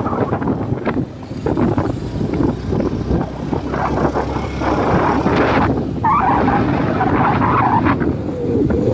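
Motorcycle engine running while riding, with wind rushing over the microphone.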